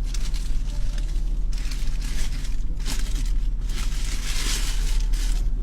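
Steady low hum of an idling car engine, with irregular bursts of crackling rustle over it, the loudest about three seconds in and again near the end.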